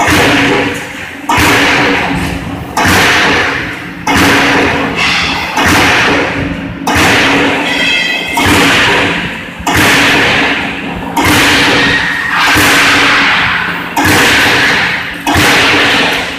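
A CNC hydraulic punching machine punching holes in a steel sieve plate. It strikes in an even rhythm, about one stroke every one and a half seconds, each a sharp bang that fades away over about a second, over a steady machine hum.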